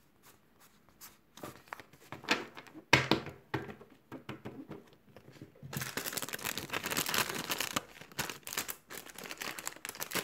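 Plastic zip bags and sticker sheets crinkling and rustling as they are handled: a few separate crackles at first, then about four seconds of continuous crinkling.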